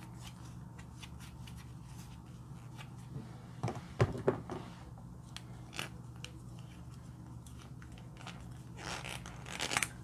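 A plastic lipstick tube and makeup packaging being handled and opened: a few sharp plastic clicks about four seconds in, another near six seconds, and quick small clicks and rustling near the end, over a low steady hum.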